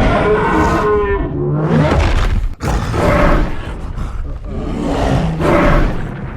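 Gorilla roar sound effects: a run of roars and growls, with a sudden break a little over two and a half seconds in where one clip gives way to the next.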